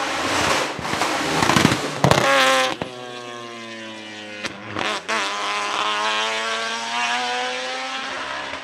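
Twin-turbo 13B rotary engine of a Mazdaspeed March 84G Group C race car, loud as the car passes at speed, its pitch dropping about two seconds in, with several sharp pops. The engine note then holds steady and fades as the car drives away.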